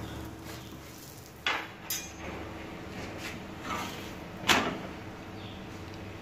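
A metal spatula knocking against an iron tawa as a stuffed paratha is turned over, a few sharp clinks with the loudest about four and a half seconds in.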